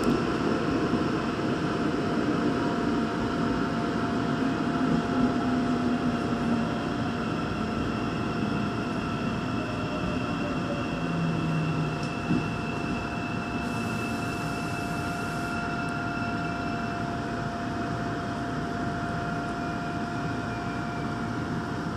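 Daegu Metro Line 2 subway train running, heard from inside the car: a steady rumble with a constant high whine over it.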